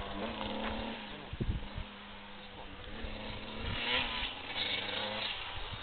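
Distant 125 cc two-stroke motocross bike engine running around a dirt track, its pitch rising and falling as the rider works the throttle. A few low thumps come about one and a half seconds in.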